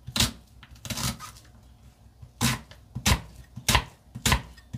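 Kitchen knife chopping an onion on a wooden cutting board: about six sharp knocks of the blade on the board, unevenly spaced.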